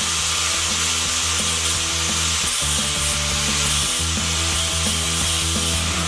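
Angle grinder running against a steel rod clamped in a vise, a steady high-pitched grinding.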